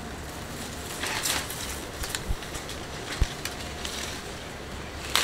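Mango tree leaves and branches rustling as they are pushed aside and handled, with scattered twig clicks and a dull thump about three seconds in, over a low steady rumble.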